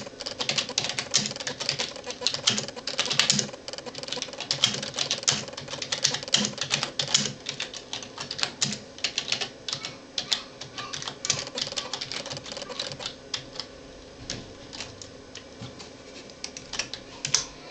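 Computer keyboard keys clicking in quick, irregular runs as text is typed, thinning out for a few seconds before a last few keystrokes near the end, over a faint steady hum.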